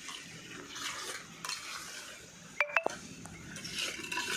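Steel mason's trowel scraping mortar against concrete hollow blocks, with a short ringing metallic clink about two and a half seconds in, the loudest sound.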